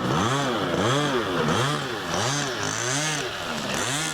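Seagull Spacewalker 46 model aeroplane's engine running, its pitch rising and falling evenly almost twice a second.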